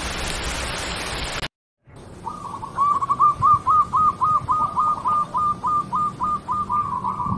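A steady rain-like hiss that cuts off after about a second and a half, then, after a brief gap, a bird chirping a fast run of short, even, rising-and-falling notes, about three or four a second.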